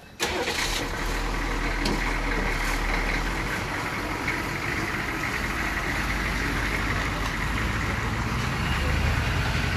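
Hummer H1 engine running steadily, cutting in suddenly just after the start, with a low rumble that swells near the end.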